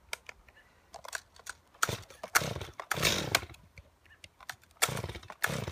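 Stihl 250 two-stroke chainsaw being pull-started: the starter cord is yanked several times and the engine turns over without catching.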